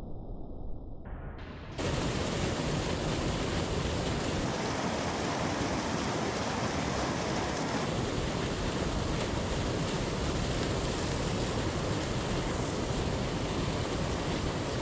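Waterfall rushing in a steady, even roar of falling water, which comes in abruptly about two seconds in after a fainter, lower rush.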